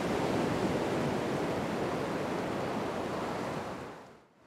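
Sea surf washing in over rock ledges onto a pebble shore, a steady rush of water that fades out near the end.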